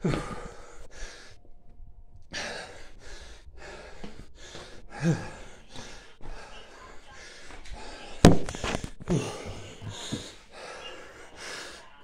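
A man panting heavily, fast deep breaths about two a second, out of breath after a hard set of burpees, with a sharp knock about 8 seconds in.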